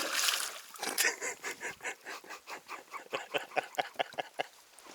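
A man laughing in a long run of rhythmic, pitched bursts, after a short noisy rush at the start.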